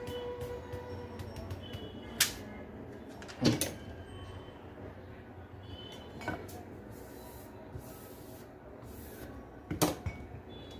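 A few sharp taps and knocks, four in all and spaced a few seconds apart, from handling a phone display and tools on a workbench while an OCA adhesive sheet is pressed onto the glass, over a steady low background hum.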